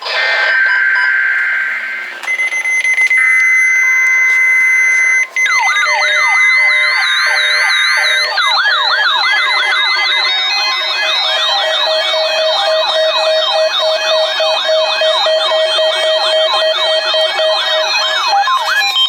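Weather alert radios receiving a NOAA Weather Radio Required Weekly Test: a short burst of two-tone data, then the receivers' electronic alarms sounding. First steady high tones, then from about five seconds in, rapid rising-and-falling siren-like warbles from several receivers overlapping.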